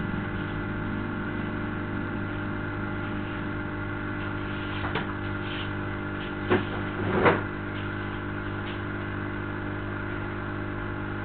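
A steady hum made of several fixed tones over background hiss, with a few brief faint sounds a little past the middle.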